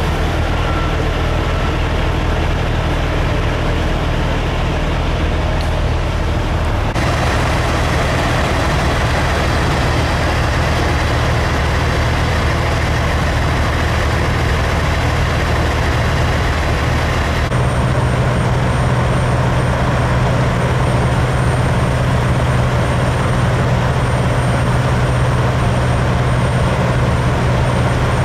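Diesel engines of big-rig semi trucks idling and pulling slowly, a steady low hum that changes abruptly twice, about seven and seventeen seconds in.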